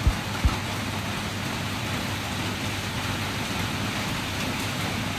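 Steady hiss of rain, with two brief low thumps in the first half second.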